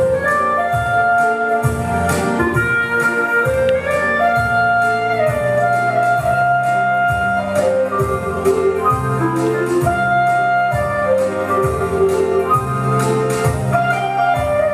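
Instrumental music with a steady beat and a melody of long held notes.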